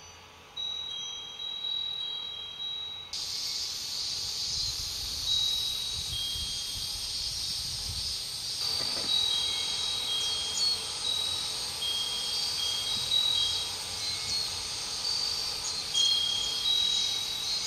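Japanese glass wind bell (fūrin) ringing with short, clear, high tones, struck again and again at irregular moments. From about three seconds in, a steady high insect drone runs underneath.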